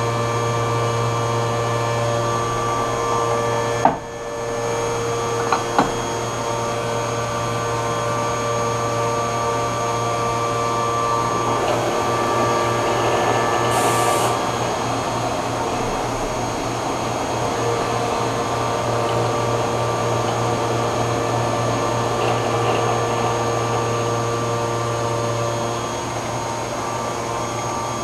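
Haas Mini Mill 2 CNC vertical mill cutting on an adaptive-clearing toolpath with a 3/8-inch Imco M223 Streaker end mill: a steady whine of several tones from the spindle and cutter over the hiss of flood coolant. There is a sharp click about four seconds in and a brief high hiss near the middle.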